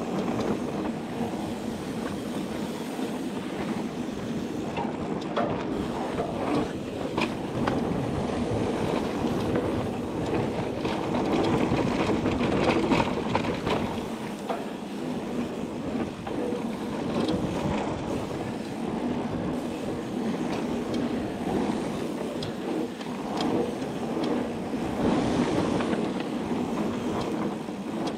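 Mountain bike riding down a dirt trail: tyres rolling over the ground with the bike rattling and clicking over bumps, the noise swelling and easing as the trail changes.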